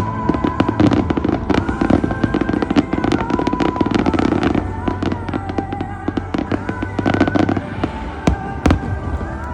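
Fireworks bursting and crackling in quick succession over a music soundtrack, the crackle thickest for the first few seconds and thinning out, with two louder single bangs near the end.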